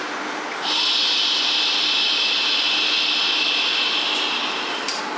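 A steady, loud rushing noise. Its upper hiss drops away for about half a second at the start and again near the end, while a lower rush carries on underneath.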